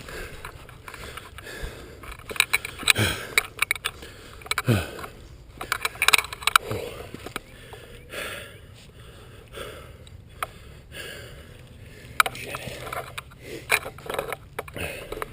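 Irregular clicks, knocks and rattles of an airsoft rifle and gear being carried and handled, picked up by a camera mounted on the rifle itself, with a few short falling-pitch vocal sounds.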